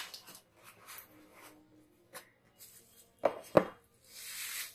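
Handling of the thermal printer as it is taken out for unboxing: light clicks and ticks, two sharp knocks a little over three seconds in, then a short rustle near the end.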